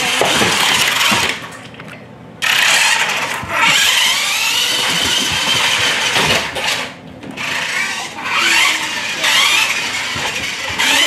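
Remote-control toy motorcycle running, a high whine that rises and falls in pitch several times like revving, with two short breaks.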